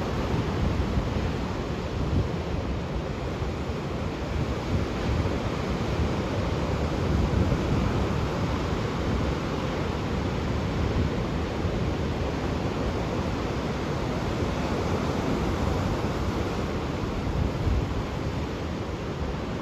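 Ocean surf washing steadily onto the shore, with wind rumbling on the microphone.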